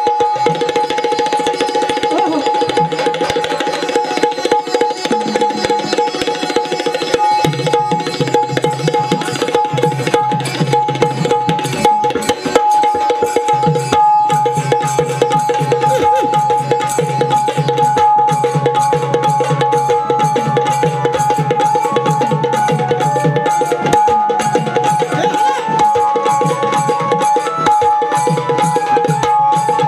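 Live folk music led by hand drums playing a busy, driving rhythm over one steady held note.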